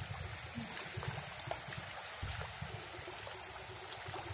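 Small waves lapping and washing in over a shallow beach, a steady wash of water with a few faint splashes.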